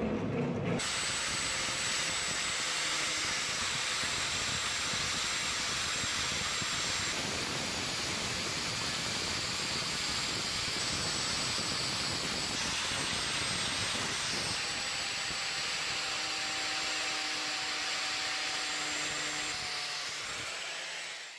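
Power tool spinning a buffing wheel against the brass butt cap of a kukri's wooden handle, polishing the metal. It makes a steady hiss that starts about a second in.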